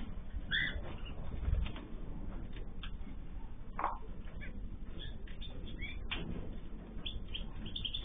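Cockatiels flapping their wings as they fly and land between perches, with the loudest a dull thump about a second and a half in. A few short chirps come between the flaps.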